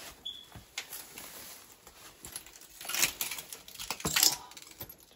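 Irregular rustling, crunching and scuffing from people moving about, with two louder scraping bursts about three and four seconds in.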